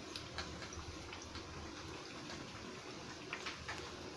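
Paruppu vadai deep-frying in a pan of hot oil: a steady, fairly faint sizzling bubble with scattered small crackles.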